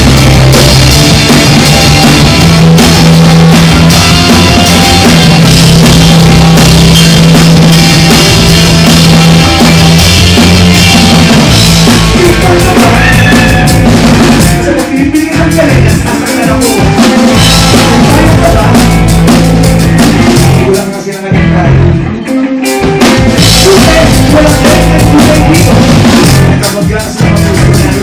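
Live rock band playing an instrumental passage on drum kit, electric bass and electric guitar, loud throughout. The band stops short twice in the second half, about halfway and again about three-quarters through.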